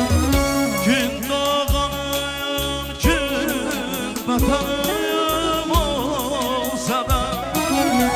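Azerbaijani wedding-band music: a wavering, ornamented melody over held keyboard chords and a steady drum beat.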